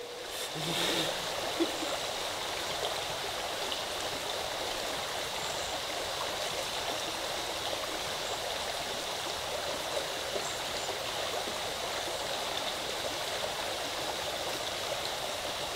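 Shallow river water running steadily, an even rushing of the current.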